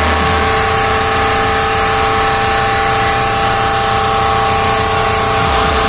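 A large DJ sound system playing very loud and distorted: a steady held tone, like a horn, over a pulsing bass beat.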